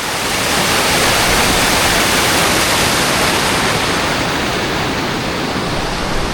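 A rain-swollen, rock-bottomed creek rushing over rocks: a loud, steady rush of water. It grows louder about half a second in and eases slightly in the second half.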